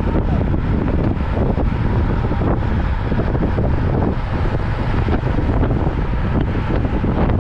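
Wind buffeting the microphone of a camera riding along on a road bicycle: a loud, steady rush with a heavy low rumble.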